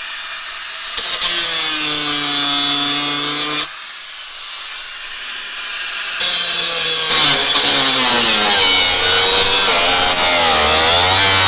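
A hand-held power tool cutting away the 4Runner's inner fender liner where the tire rubs. Its pitch bends and wavers as the blade bites, with a pause of a couple of seconds in the middle before a longer, louder stretch of cutting.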